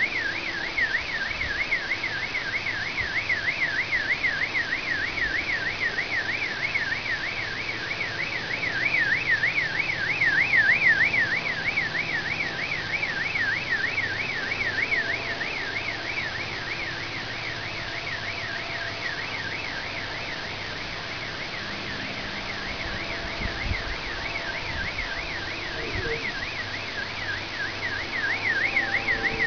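Car alarm siren wailing without pause, its pitch swinging up and down several times a second. Under it runs a faint low steady drone, which the uploader likens to an airplane motor.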